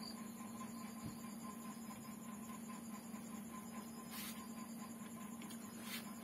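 Quiet eating by hand: fingers mixing rice and curry on a plate and chewing, with a couple of faint clicks about four and six seconds in, over a steady low hum.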